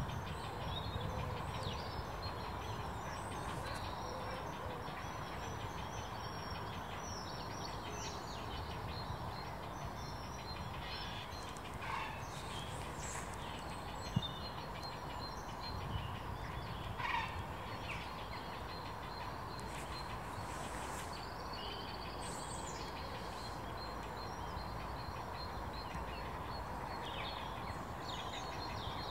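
Birds calling with short, scattered calls over a steady low outdoor rumble. Two louder, brief calls stand out about 12 and 17 seconds in, and there is a single sharp tap about 14 seconds in.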